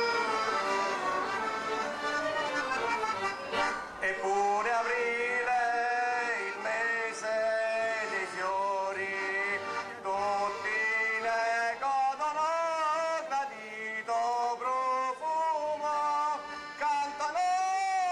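Traditional folk music with accordion. From about four seconds in, a single melody line with sliding, wavering pitch carries over it in short phrases.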